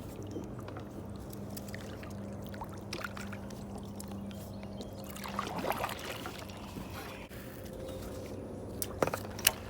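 Steady low motor hum over water sounds around a kayak; the hum fades about five and a half seconds in, followed by a brief swish and a few sharp knocks near the end.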